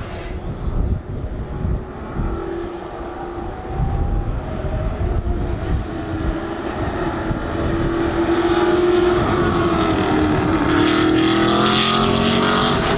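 Engine noise with a slowly wavering pitch, building up and growing louder and brighter in its last few seconds, over a low rumble.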